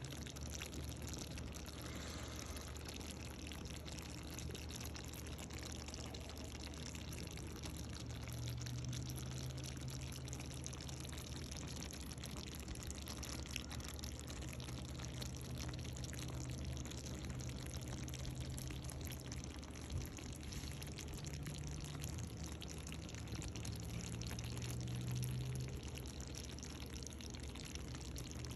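Steady watery hiss of liquid in the kitchen, with a low hum that comes and goes in several long stretches.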